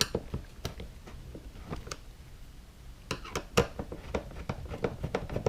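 Scattered small clicks and taps of a screwdriver backing a Phillips screw out of a motorcycle trunk's plastic side panel, with a quick run of clicks about three seconds in.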